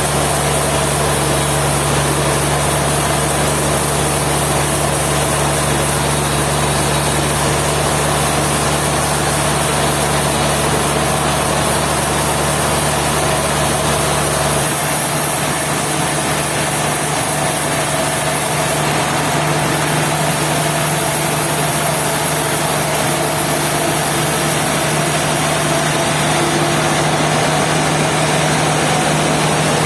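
Sawmill engine running steadily with a constant low hum; the deepest rumble drops away about halfway through.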